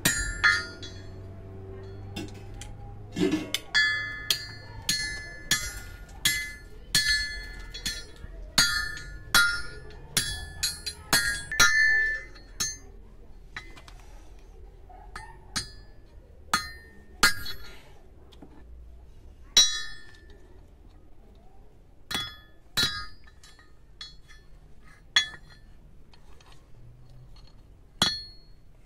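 Hand hammer striking steel parts, a rod driven into a short steel pipe on a steel base plate, each blow a sharp ringing clink. The blows come thick and irregular for about the first twelve seconds, then only every few seconds.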